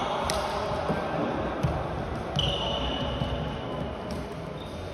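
Floorball game sounds in a sports hall: sharp clicks of sticks on the plastic ball and a long high sneaker squeak on the court floor about two and a half seconds in, over the hall's echoing background.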